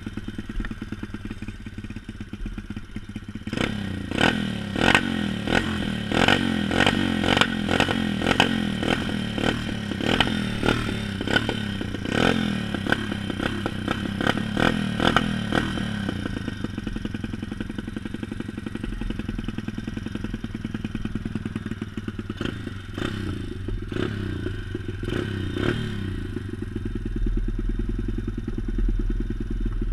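Pit bike's single-cylinder engine idling. It is blipped with a long series of quick, short revs in the first half, settles back to idle, then gets three or four more blips before idling steadily again.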